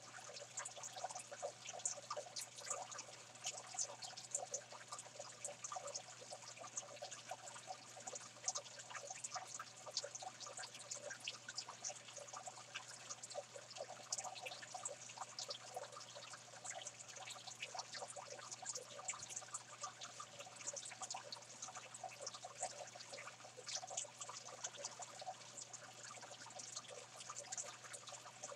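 Saltwater aquarium water trickling and splashing, a steady patter of small splashes over a low, constant hum.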